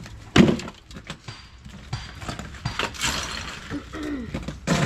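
A slab of ice dropped into a plastic cooler, with a sharp knock about half a second in, then scattered clinks and crunches of ice being handled.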